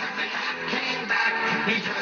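Music playing.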